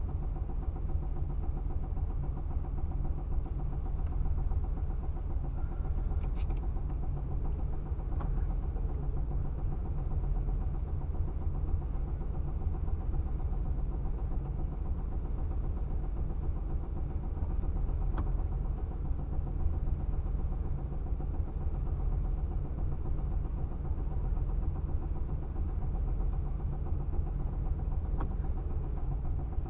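Pontiac Trans Am V8 idling steadily with a ticking and banging from the valvetrain. The owner traced the noise to a broken rocker arm, with the pushrod banging on the rocker cover.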